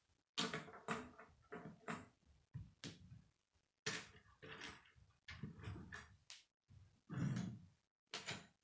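Loose plastic K'nex pieces clicking and clattering against each other and the wooden tabletop as a hand rummages through a pile of parts, in irregular bursts with short gaps, one longer rustle about seven seconds in.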